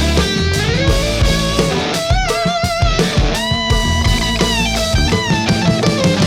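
Background rock music led by an electric guitar playing bending, vibrato-laden melody lines over a steady bass and drum beat.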